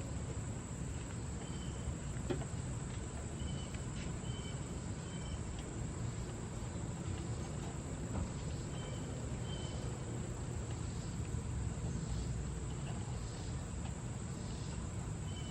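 Crickets chirping faintly in short high trills, over a steady low background hum.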